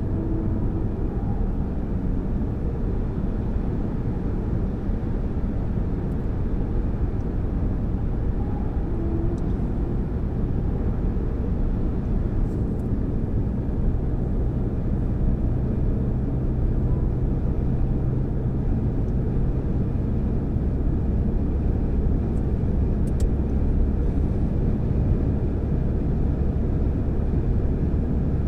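Car cabin noise while driving at motorway speed: a steady low rumble of tyres and engine, with a low drone that grows stronger in the second half.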